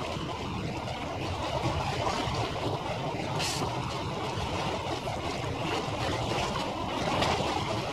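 Steady noise of harbour ambience played back at five times normal speed, with a brief hiss about three and a half seconds in.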